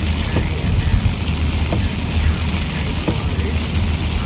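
Car cabin noise while driving on a wet road in the rain: a steady low drone of engine and tyres under an even hiss of spray, with a faint short sound repeating about every second and a half.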